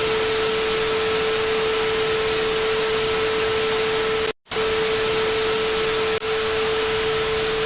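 Loud static hiss, like a television with no signal, with a steady tone held through it; it cuts out for a moment about four seconds in and then carries on.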